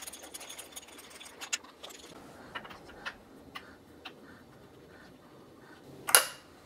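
Scattered light metallic clicks and clinks as a small wrench and hands work at the cam sprocket of a Porsche 911 3.2 L engine, with one louder, sharper clack about six seconds in.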